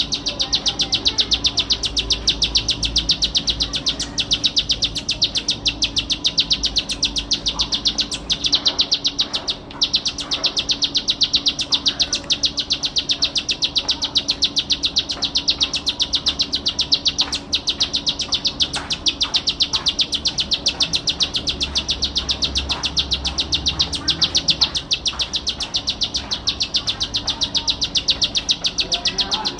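Ciblek sawah (a prinia) singing a fast, unbroken trill of rapidly repeated high notes, with one very short break about ten seconds in.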